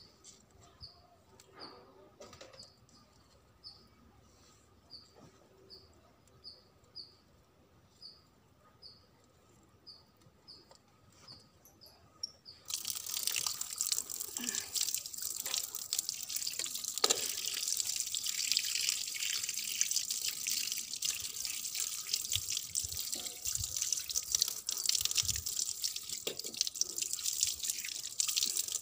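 A small bird chirps about twice a second over a quiet background. A little before halfway, a tap is opened and water runs and splashes onto a concrete floor while raw chicken pieces are rinsed under it by hand, with irregular splashes.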